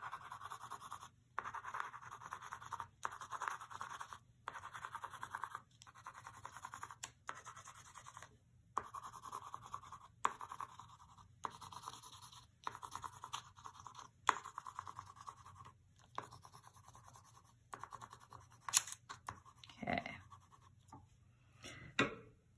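Colored pencil scratching on paper, shading in small squares in a series of back-and-forth scratchy strokes with short pauses between them, plus a couple of brief sharper sounds near the end.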